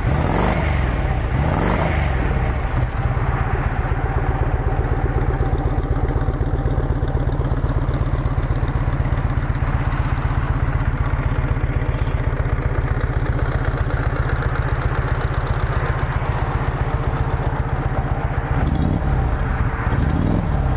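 1998 Harley-Davidson Ultra Classic's fuel-injected Evolution V-twin idling steadily through its stock exhaust with a lumpy, even beat. The throttle is blipped briefly near the start and again near the end.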